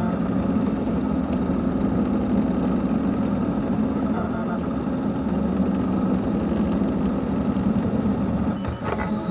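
An electric motor running steadily with a low, even hum, with a few clicks near the end.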